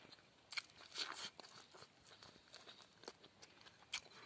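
Faint eating sounds: chewing, with a few short crunches and crinkles as rice and pork barbecue are picked by hand from a leaf plate.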